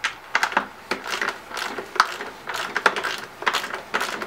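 Ratcheting wrench clicking in short irregular runs, several sharp metallic clicks a second, as the screws holding the engine's top cover and fuel tank are backed out.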